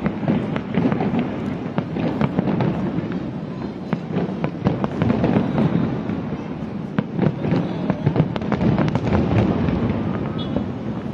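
Fireworks going off in a dense, continuous barrage: many sharp bangs and crackles in quick succession over a constant low rumble.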